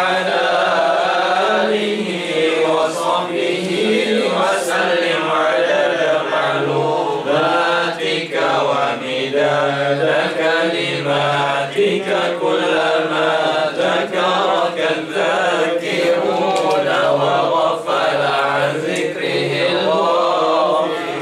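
A man chanting an Arabic salawat, a prayer of blessing on the Prophet Muhammad, into a microphone: a slow, unbroken melodic recitation with long held notes.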